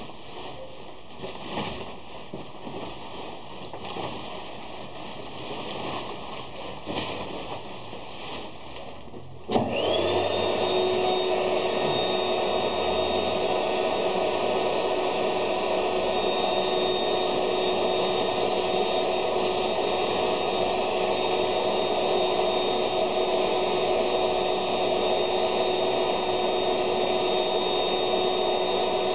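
Plastic sheeting rustling and knocking as it is handled, then about nine and a half seconds in an electric blower switches on abruptly, spins up and runs steadily: a rushing of air with a steady high whine.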